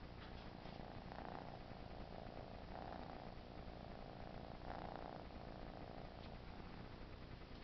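Tabby kitten purring close to the microphone, a steady faint purr that swells three times, about every two seconds.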